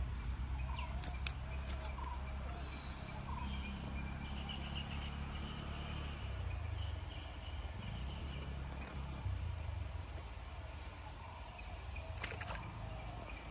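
Outdoor riverside ambience: scattered short bird chirps over a steady low rumble, with a few sharp rustles or clicks, the loudest near the start and shortly before the end.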